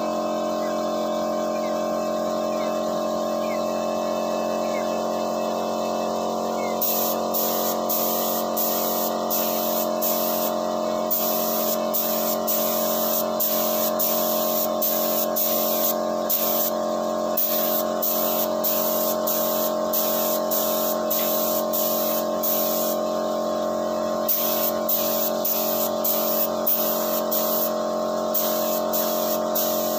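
An air compressor runs with a steady hum while a gravity-feed spray gun hisses as it sprays lacquer paint. From about seven seconds in, the hiss comes in quick on-and-off spurts, one per pass of the gun.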